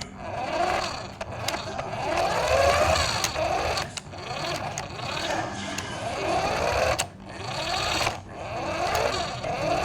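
Small electric motor of a radio-controlled toy car whining, its pitch rising and falling over and over as it speeds up and slows, with scattered clicks and knocks.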